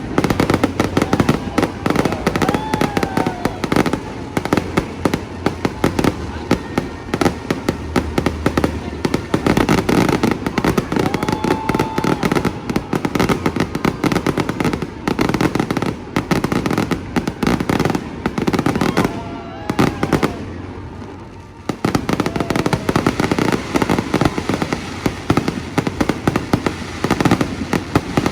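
Fireworks display: a dense, continuous barrage of bangs and crackles, easing briefly about three-quarters of the way through before picking up again.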